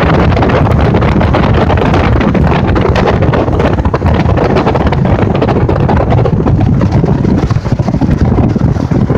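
Wind buffeting the microphone: a loud, steady rushing noise heavy in rumble, with a few brief dips in the second half.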